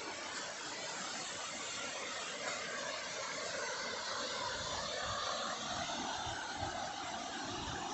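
Waterfall rushing: a steady, even roar of falling water, with some low rumbling coming in from about halfway.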